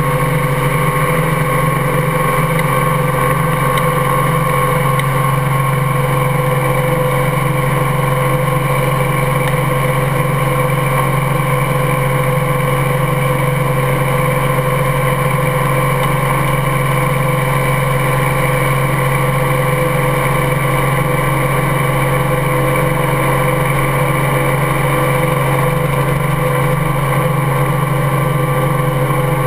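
Helicopter engine and rotor running steadily at flight power as the helicopter lifts off and flies, a constant even hum with a few fixed tones.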